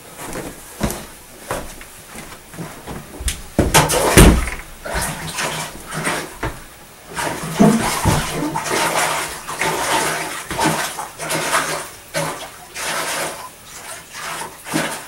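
Water splashing and sloshing in irregular bursts, with scattered knocks among them.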